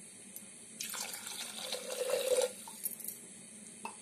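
Water poured from a glass into an aluminium pressure cooker onto rice roasted in ghee, a splashing pour of about a second and a half that starts about a second in and rises in pitch as it ends.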